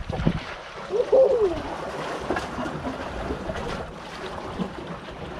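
Harbour water lapping and wind buffeting the microphone, with one short rising-and-falling call about a second in.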